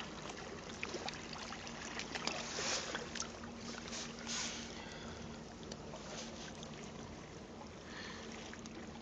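Shallow water sloshing and lapping around a hand holding a European sea bass (spigola) in it as the fish is revived for release, with small splashes about two to four seconds in.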